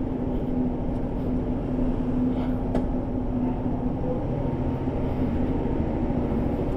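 Engines running with a steady low drone and a constant hum, with one faint click about midway.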